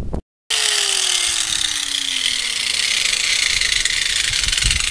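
Handheld power tool cleaning rust and paint off a steel truck rim to prepare it for welding: a steady hiss of abrasion against the metal, with a motor tone that falls in pitch over the first few seconds.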